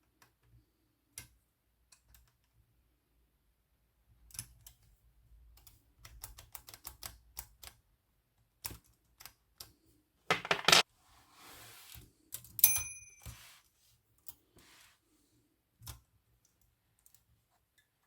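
Olivetti Lettera 22 portable typewriter's mechanism clicking and clacking as it is worked by hand. There are scattered single clicks, a quick run of clicks about six seconds in, a loud burst of rapid clacks around ten seconds in, and a click with a short ringing tone just before thirteen seconds.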